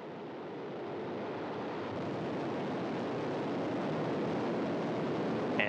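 Soyuz rocket's liquid-fuelled engines, four strap-on boosters and the core stage, running on the launch pad after ignition: a steady wash of noise that grows gradually louder as they build up to full thrust just before liftoff.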